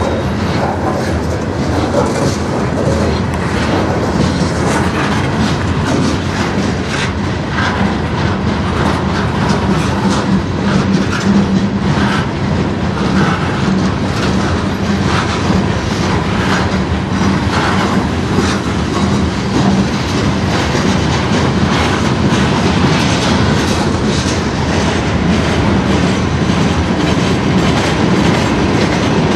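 Freight cars of a manifest train rolling past: a steady, loud rumble of steel wheels on rail with continual clickety-clack of wheels over rail joints.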